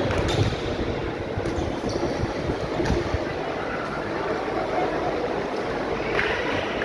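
Steady low rumble of a volleyball gym's ambience, with crowd chatter and fan noise and a few short knocks, around the start, about 3 s in and about 6 s in.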